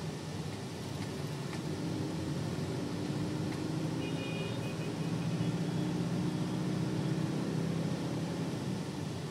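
A taxi's engine and road noise heard from inside the cabin as the car drives in city traffic, the engine note rising slightly as it picks up speed. A brief high beeping comes in about four seconds in.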